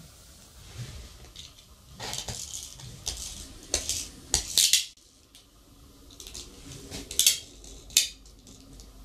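Small toy clockwork car handled and set onto an aluminium rail track: short, irregular clattering clicks and scrapes in two clusters, the loudest a quick run just before the middle and two sharp clicks about three quarters of the way through.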